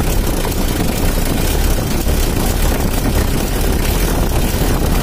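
Mitsubishi L300's 4D56 four-cylinder diesel engine idling steadily, heard close at the engine bay just after valve and injection-pump adjustment, running smooth and dry, not too rough. The sound cuts off abruptly near the end.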